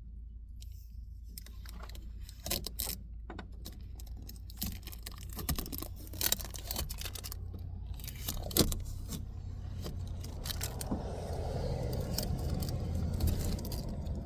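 Scotch tape being pulled off car window glass: scattered sharp clicks and clinks of handling, then a steady rasp from about ten seconds in as the tape peels away.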